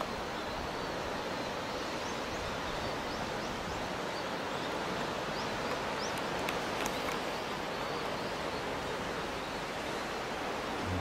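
Steady rush of sea surf breaking against the rocks at the foot of a sea cliff, heard from above. A few faint high chirps come in the middle.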